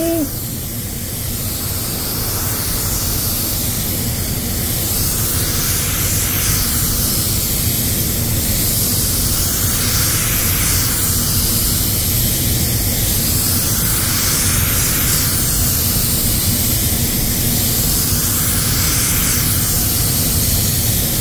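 Compressed-air paint spray gun spraying clear coat: a steady, loud air hiss that swells slightly about every four seconds.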